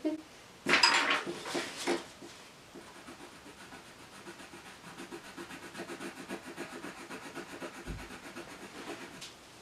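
Colored pencil scratching quickly back and forth on paper, shading in a drawing, with a few louder scratchy strokes about a second in.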